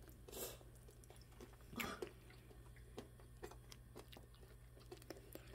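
Faint chewing of a sugar-coated shine muscat grape tanghulu: scattered soft mouth clicks and a couple of brief bites, with little crunch because the sugar coating has not fully set and is sticky.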